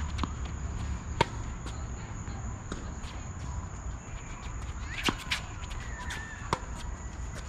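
Tennis rally: sharp pops of rackets striking the ball and the ball bouncing on the hard court. The loudest hit comes about a second in, and a few more follow around five to six and a half seconds in, over a steady low rumble.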